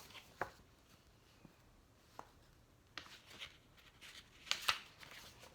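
Soft paper rustles and small ticks of a picture book's page being handled and turned, a few short scrapes spread out, the loudest near the end.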